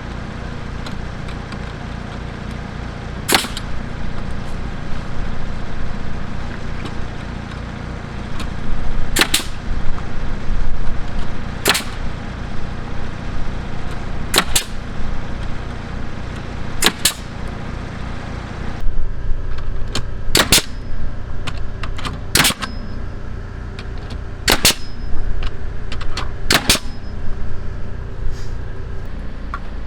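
Pneumatic framing nailer (Senco FramePro) firing nails into cabin siding: about nine sharp shots a few seconds apart, some in quick pairs, over the steady hum of an MEP-802A military diesel generator running the air compressor.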